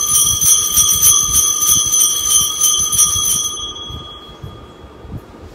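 Altar bell shaken rapidly, several strikes a second, ringing out for the elevation of the chalice at the consecration. The ringing stops about three and a half seconds in and dies away within half a second.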